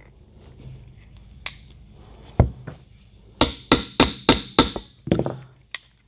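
Sharp knocks on a mobility-scooter front-wheel axle as the spacer is smacked into line with the axle and fork. There is one knock, then five in quick succession at about three a second, then a few more.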